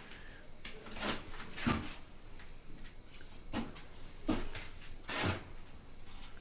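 A handful of short, quiet knocks and scuffs, irregularly spaced about a second apart, over faint room noise.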